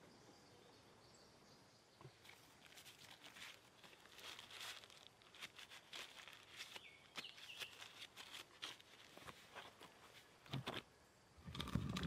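Soft crinkling and rustling of a paper sheet being handled and folded, with small clicks and taps. It starts about two seconds in, and a louder knock comes near the end.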